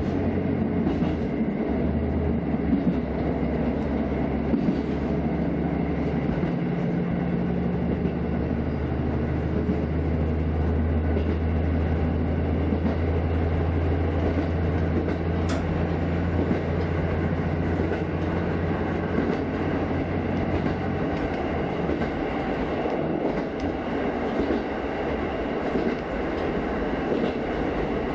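KiHa 54 diesel railcar running along the track, heard from its rear cab: steady rumble of wheels on rail with a low engine drone that fades away about three-quarters of the way through, leaving the running noise alone.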